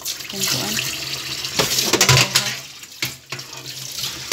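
Tap water running into a stainless-steel sink and splashing in a bowl as a fish is rinsed and scrubbed. Several louder splashes come in a cluster a second and a half to two and a half seconds in, and another near three seconds.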